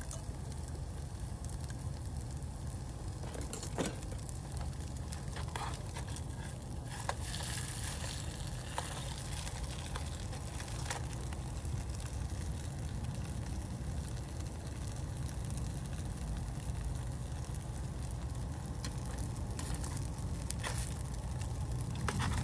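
Food frying in a pan on a camp stove: a steady low rush from the burner with faint sizzling, and a few sharp clicks of metal tongs against the pan.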